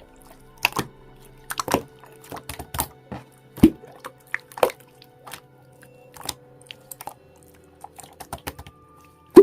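Slime being squeezed and poked by hand, giving irregular wet clicks and pops, with one louder pop about three and a half seconds in.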